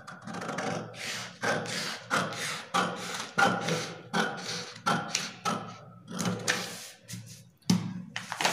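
Scissors cutting through stiff pattern paper in a steady run of snips, about two a second. Near the end the cut paper rustles as it is lifted away.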